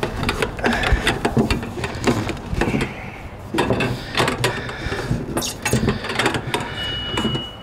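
A coil of 3/4-inch copper tube being handled while its end is dragged through the middle of the coil: repeated clinks, knocks and scraping of copper tube against copper tube.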